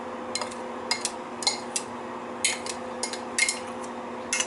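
Plastic spatula tapping and scraping against a small bowl and the stainless steel pot, knocking chopped onions into the pan: about a dozen irregular sharp clicks and clinks over a steady low hum.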